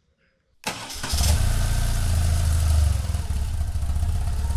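Motorcycle engine starting suddenly about half a second in, then running steadily with a strong low rumble.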